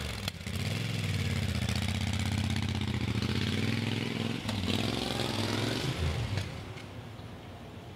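Motorcycle engine pulling away and accelerating, its revs rising several times with a drop between gears, then fading away as the bike rides off.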